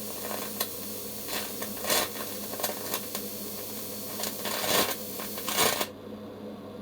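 Welding copper-phosphorus filler onto a stainless steel tube: a steady hiss broken by irregular sharp pops as the weld spits, stopping suddenly about six seconds in. A low steady hum runs underneath.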